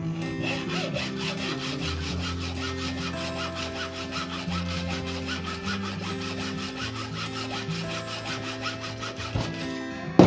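Hacksaw cutting through a chrome-finished metal floor-trim inlay held in a metal miter block, squaring its end: rapid, regular back-and-forth strokes that stop about nine seconds in. A sharp knock comes at the very end.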